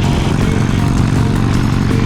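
Harley-Davidson Sportster 883's air-cooled V-twin engine running steadily, with music playing over it.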